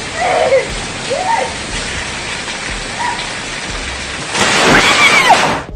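Heavy rain pouring down, with water splashing from a drainpipe. About four seconds in, a lightning strike a few feet away sets off a loud crash of thunder, and a voice cries out.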